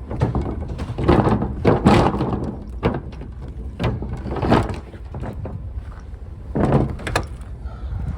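Several knocks and thuds from a door being handled, opened and shut, the strongest about two seconds in and near seven seconds in, over a steady low rumble of strong wind.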